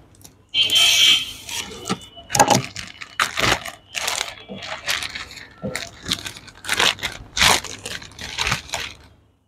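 Plastic courier mailer bag being slit with a utility knife, then crinkled and pulled open by hand: a string of irregular rustling, crackling and tearing sounds.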